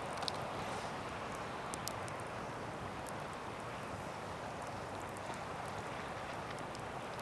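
Pine fatwood campfire crackling, with a few scattered sharp pops, over a steady wash of ocean waves.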